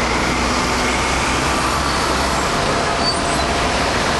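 Steady road traffic on a busy city square: engines and tyres of passing cars, a taxi and buses blend into one continuous wash. A low engine rumble drops away about halfway through.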